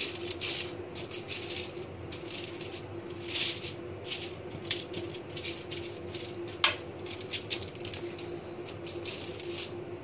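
Silicone pastry brush spreading oil over aluminium foil lining a baking tray: irregular strokes of crinkling, scratchy foil, with one short falling squeak a little past the middle. A steady low hum runs underneath.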